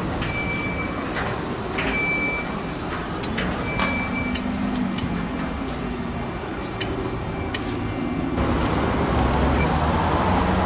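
SBB ICN (RABDe 500) electric tilting train running away over the station tracks: steady wheel-on-rail noise with scattered clicks over the points and thin, faint squeal tones. About eight seconds in it gives way to an Re 460 electric locomotive drawing its coaches in, a louder, lower rumble.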